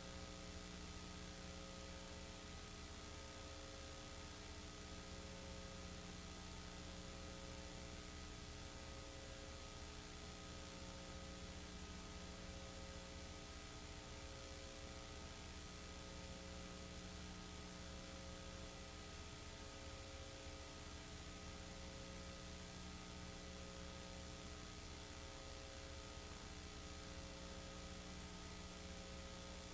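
Steady electrical hum and hiss with no other sound. A few of the hum's tones pulse slowly on and off, about every three seconds.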